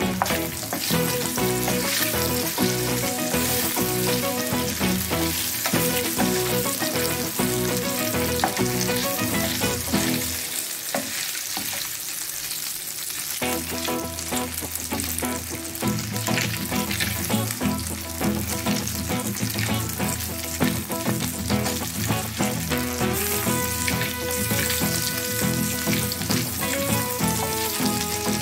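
Sausages sizzling and crackling steadily in hot oil in a frying pan as they are turned with a wooden stick, over background music.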